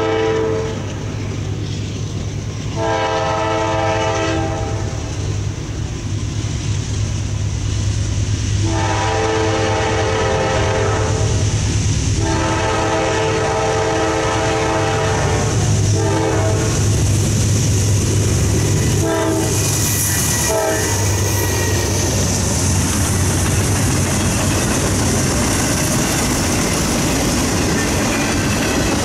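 Approaching freight train's diesel locomotive horn, sounding three long blasts and then a few short ones over a steady low engine drone. Over the second half the train passes close, its autorack cars rolling by with a steady wheel clatter and hiss on the rails.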